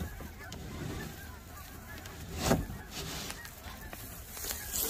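A flock of geese honking faintly, many short overlapping calls, with one sharp knock about halfway through.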